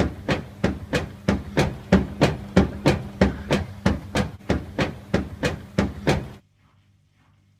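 Beko washing machine running with a steady low hum and a sharp, regular knock about three times a second. Knocking and hum stop abruptly about six seconds in, leaving near silence.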